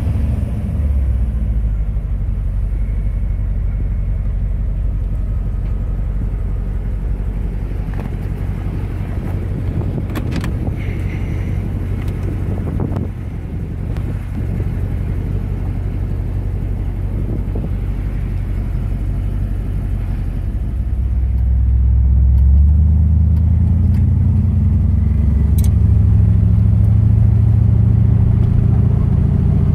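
1964 Lincoln Continental's 430 cubic-inch V8 running, a steady low rumble heard from inside the car. About two-thirds of the way through, the engine note grows louder and fuller and stays up.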